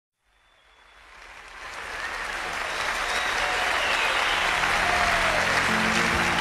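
Concert audience applauding, fading in over the first couple of seconds, with a few whistles. Low sustained notes from the band come in underneath near the end.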